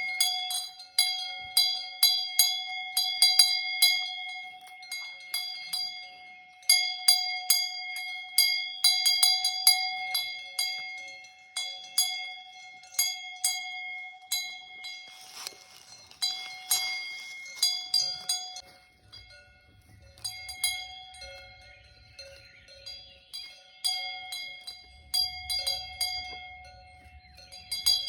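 Swiss alpine cowbells clanking in irregular clusters of strikes as the animals move, each strike ringing on, with pauses of a second or two between clusters. A brief rustling noise about fifteen seconds in.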